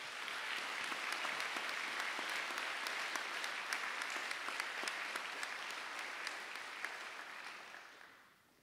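Audience applauding, a steady clapping that dies away about eight seconds in.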